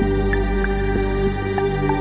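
Background music in a new-age style: held low chords with short, light notes above them.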